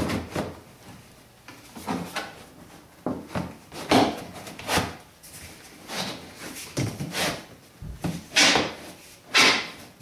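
Plastic fan housing being pressed and worked down onto the rim of a plastic garbage can: irregular scraping, creaking and knocking of plastic on plastic, several of the scrapes loud, as the housing is seated snugly on the rim.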